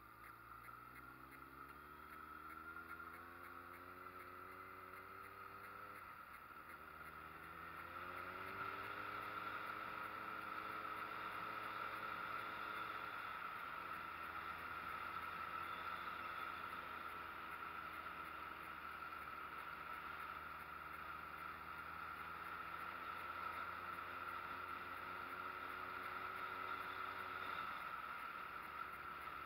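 Street motorcycle engine pulling up through the gears: its pitch rises, drops at a gear change about six seconds in, rises again, then holds fairly steady and falls away near the end.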